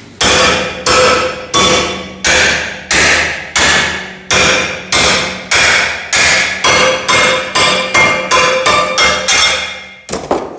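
Hammer blows on a steel bar in a vise, bending it round a former: about twenty ringing metallic strikes that come faster as they go on, then stop just before the end.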